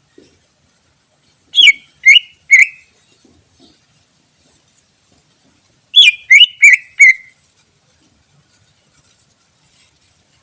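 Green leafbird (cucak ijo) calling: a quick run of three sharp falling notes, then a run of four more a few seconds later.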